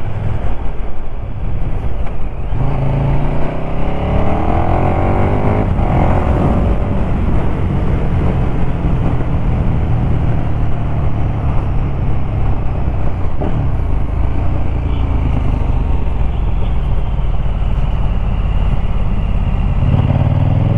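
2017 KTM Super Duke GT's V-twin engine running under way with steady wind rush; a few seconds in the engine note rises as the bike accelerates, then it settles into a steady cruise.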